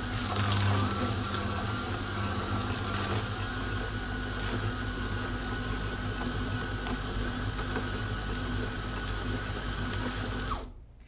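Electric meat grinder motor running steadily, with crackling as material goes through it. It is switched off near the end, and its whine falls as it spins down.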